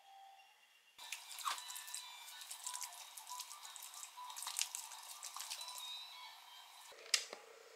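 Capped baby bottle of formula being shaken by hand: the milk sloshes and the bottle knocks in quick, irregular clicks, mixing the powder into the water. There is a sharp click near the end.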